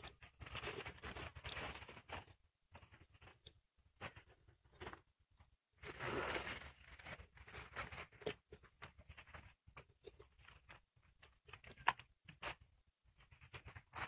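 Faint rustling, tearing and crunching of leaves and dry stalks as goats browse on cut branches and move about on dry fodder, with scattered small cracks and a longer rustle about six seconds in.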